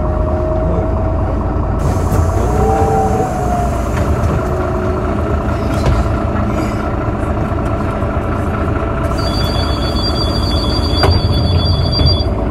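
Irisbus Citelis 18M articulated bus running, diesel engine and Voith automatic gearbox heard together, with a short rising whine about two and a half seconds in. Near the end a steady high-pitched two-tone electronic sound plays for about three seconds.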